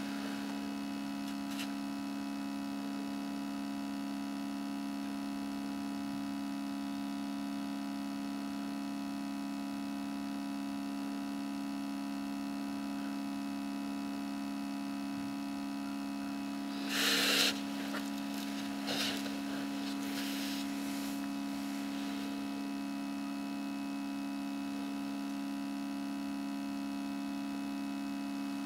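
A steady electrical hum with two strong low tones and fainter steady whine above them. About two-thirds of the way through comes a short scratchy noise, followed by a couple of fainter ones.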